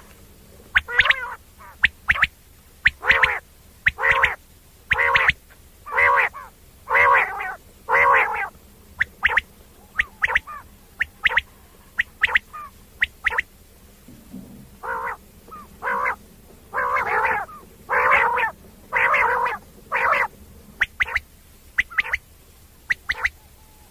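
A bird giving a long series of short, harsh calls, about one a second, with quicker, sharper notes between them and a brief pause about halfway through.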